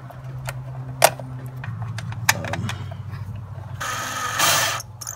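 Ridgid cordless drill-driver running for just under a second near the end, driving a bolt back into the housing over the throttle body. Before it, a few small clicks and taps of parts being handled, over a low steady hum.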